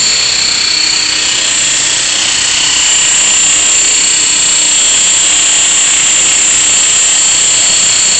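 Esky Belt CPX electric RC helicopter in flight: a loud, steady high-pitched whine from its motor, gears and spinning rotors. Part of the whine dips slightly in pitch and the sound grows a little louder about three seconds in.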